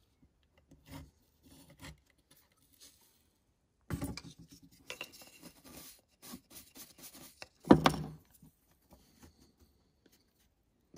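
Hobby knife scratching lines into hard hydrocal plaster along a steel ruler, in faint short scrapes. About 4 s in a brush sweeps plaster dust off the surface in a brief rustle, and just before 8 s comes one short loud knock.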